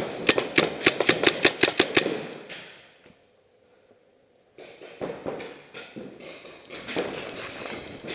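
Paintball marker firing a rapid string of about a dozen shots, roughly six a second, for about two seconds. After a brief lull, scattered pops and knocks follow.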